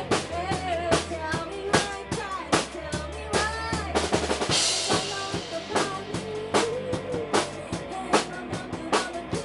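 Rock music with a busy drum kit (kick, snare and rimshot hits) under a bending melodic line. The low bass drops out about halfway through, just as a bright cymbal crash comes in.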